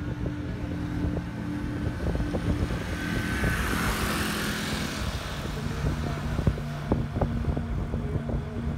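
Taxi ride heard from inside the cabin: steady engine hum and road noise with frequent small knocks and rattles from bumps. A swell of rushing noise rises and fades about three to five seconds in.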